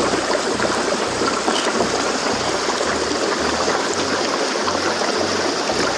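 A mountain stream rushing steadily, an even hiss of running water, with an uneven low rumble beneath it.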